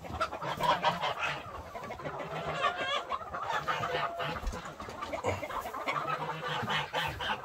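A flock of chickens clucking, many short calls overlapping.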